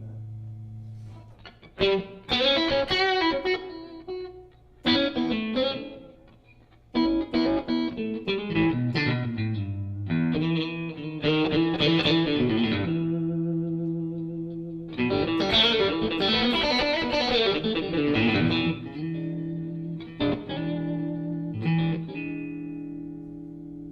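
Electric guitar, a Stratocaster, played through the Surprise Sound Lab Flex15 single-ended amp into a 2x12 cabinet, lightly overdriven: blues licks in short runs of picked notes, separated by held, ringing notes and brief pauses.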